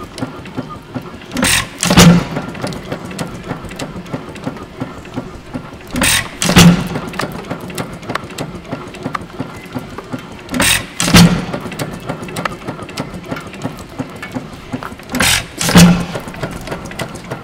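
Moody (Jacobson-built) sideshaft hit-and-miss gas engine running through its new muffler. It fires four times, about every four and a half seconds, each firing a pair of loud bangs about half a second apart. Between firings it coasts with a light, regular clicking.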